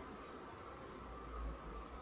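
Quiet room tone: a steady faint hum and hiss, with a low rumble swelling briefly about one and a half seconds in.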